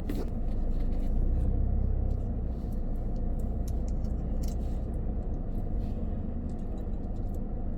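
Car interior while driving: a steady low engine and road rumble, with a few faint clicks.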